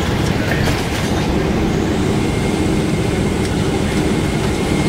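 Steady cabin rumble of a Boeing 777-200ER rolling out on the runway after touchdown: wheels and engines, with a faint steady whine over it.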